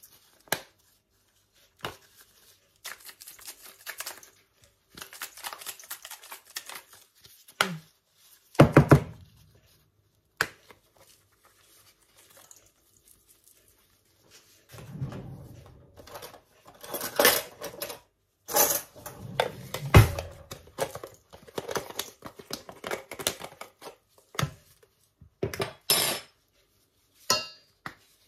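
Spice jars being opened, shaken and set down next to a stainless steel mixing bowl: irregular clicks, rattles and knocks, with louder clusters about nine seconds in and again from about fifteen to twenty-two seconds in.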